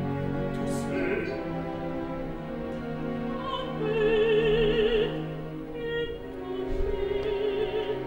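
Opera singing: a solo voice sings short phrases with wide vibrato over sustained low orchestral strings.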